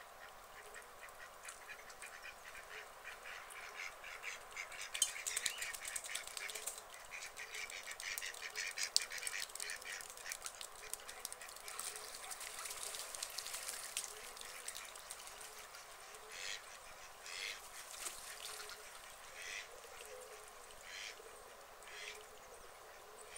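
White domestic ducks quacking: a dense run of quick, rapid calls in the middle, then separate short quacks about a second apart near the end.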